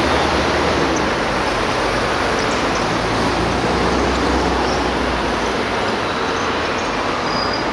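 Steady, loud outdoor background roar with no distinct events.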